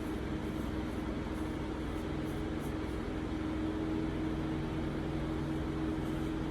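Steady mechanical hum with a constant low tone, like a room fan or air conditioner running.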